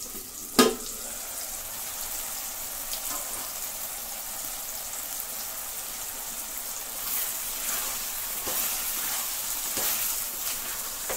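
Prawns in a thick masala bubbling and sizzling in a pot as the added water cooks off. A single sharp knock about half a second in, and a wooden spatula stirring and scraping through the pan in the second half.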